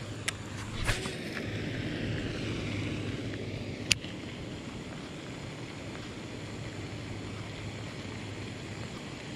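Baitcasting rod and reel on a long cast: clicks as the cast is made, a few seconds of hiss as line runs off the spool, then a sharp click about four seconds in as the reel is engaged. After that, a steady outdoor hiss with some wind on the microphone.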